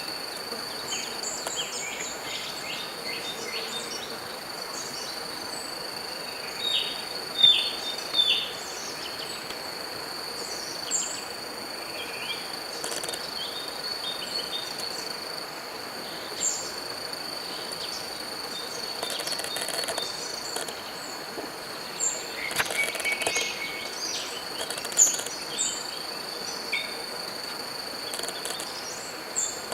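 Natural ambience: insects trilling steadily at one high pitch, with short bird chirps scattered throughout. A few louder chirps come about a quarter of the way in and again near the end.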